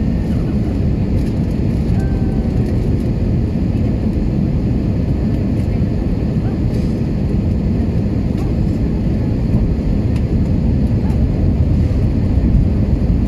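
Steady cabin noise of an Airbus A320 on approach: the low rumble of the engines and rushing air heard from a window seat inside the cabin.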